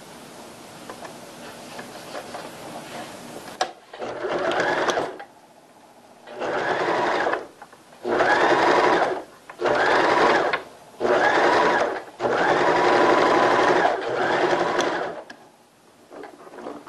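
Domestic electric sewing machine stitching in about seven short runs, each one to two seconds long with brief stops between, as a knit cuff is sewn onto a baby's pant leg in the round. A few seconds of soft fabric rustling come before the first run.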